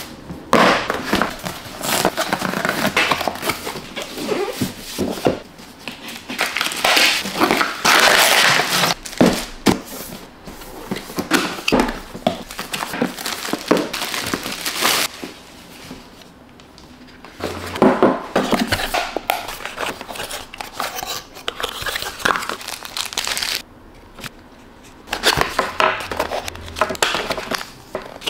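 Paper and cardboard packaging crinkling and rustling in irregular bursts as a box is unpacked by hand, with tissue wrapping being crumpled and pulled out.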